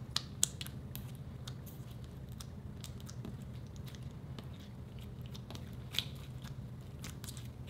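Clear slime being squished and kneaded by hand, giving a run of sticky crackles and small clicking pops. Two sharper pops come just after the start and another about six seconds in.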